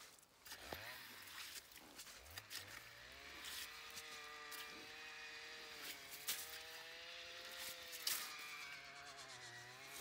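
Metal ice skimmer scooping slush out of a drilled ice-fishing hole, with a few sharp clicks and knocks as it hits the ice. About three seconds in, a steady, slightly wavering motor hum starts and runs underneath.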